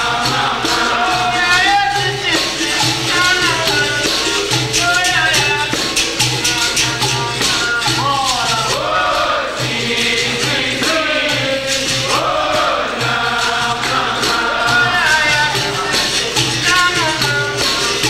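Capoeira roda music: a voice singing over a steady beat of tambourine and shaker-rattle percussion.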